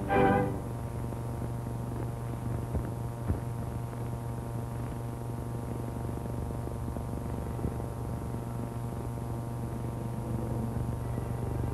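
Steady electrical mains hum with faint hiss and a few scattered clicks, the background noise of an old film soundtrack. The last of an orchestral string passage dies away in the first half second.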